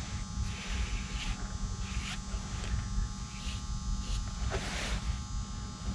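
A steady electrical buzz and hum underneath soft swishing strokes of a bristle brush dabbing adhesive into aircraft wing fabric, with one louder swish about three-quarters of the way through.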